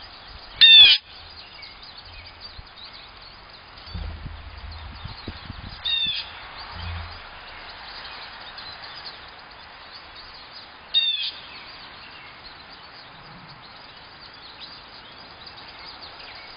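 Blue jay calling three times, short calls several seconds apart, the first the loudest, with faint chirps of other small birds in between.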